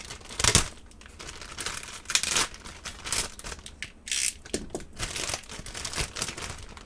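Clear plastic packaging bag crinkling and tearing as it is pulled open by hand, in irregular bursts, the loudest about half a second and two seconds in.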